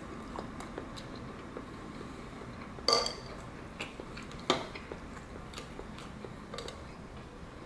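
Metal spoon and chopsticks knocking against a ceramic ramen bowl while stirring noodles. A few scattered clinks; the loudest comes about three seconds in with a brief ring, and another sharp one comes about four and a half seconds in.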